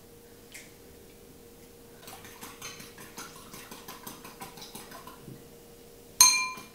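Metal spoon beating egg in a small ceramic bowl for the glaze: rapid light clicking against the bowl, then one loud ringing clink on the china near the end.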